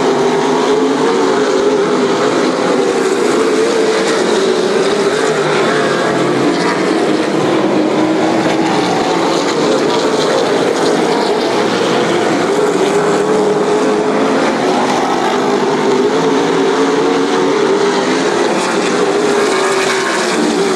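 Late model stock cars' V8 racing engines running hard on a short oval track: a steady, loud blend of several engines whose pitch rises and falls as the cars lap.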